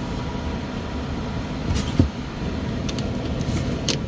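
Gas furnace inducer motor running steadily with a low hum, with a few sharp clicks, the loudest about halfway through and another near the end.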